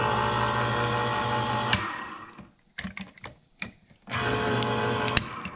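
Electric can opener's motor running as it turns a can, stopping with a click about two seconds in. A few light knocks and clatter of the can follow, then the motor runs again for about a second and cuts off with a click.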